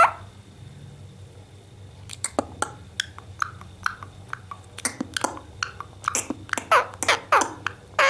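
Indian ringneck parakeet making a rapid run of soft clicks and brief gurgling chirps with its beak against a man's lips, starting about two seconds in.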